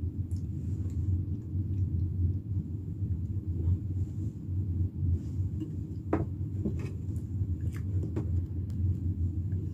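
A steady low rumble of background hum, with a few faint short clicks about six to eight seconds in.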